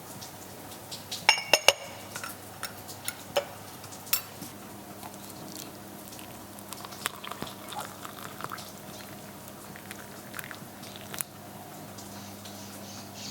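Kitchen utensils and dishes being handled. A few sharp, ringing clinks come about a second in, followed by scattered light taps and knocks. A steady low hum starts about four and a half seconds in.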